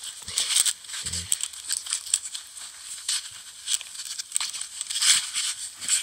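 Handling noise of a folding knife being worked into a black nylon sheath: irregular rustling and scraping of the fabric, with small clicks of the metal knife against it.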